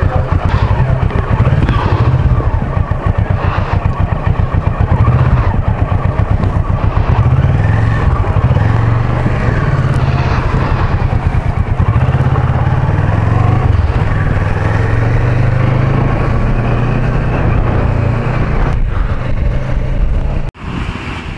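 Motorcycle engine running on the move, a steady fast even beat. The sound drops off abruptly near the end.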